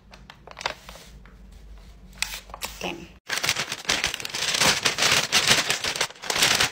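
Brown paper bag crinkling and rustling as it is handled and opened close to the microphone, faint at first and loud from about three seconds in.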